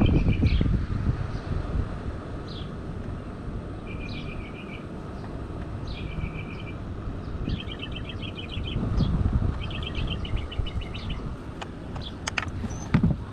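A songbird singing short repeated phrases every couple of seconds, the later ones rapid trills, over a low rumble, with a few sharp clicks near the end.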